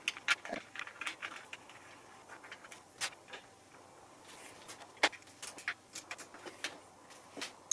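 Scattered light clicks and taps of an aluminium motorcycle handguard and its mounting hardware being handled and fitted to the handlebar, with sharper clicks about three seconds and five seconds in.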